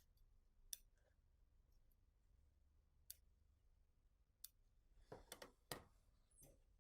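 Faint, scattered clicks and small taps from handling sewing work and tools, about half a dozen spread out and a quick cluster near the end, over near-silent room tone.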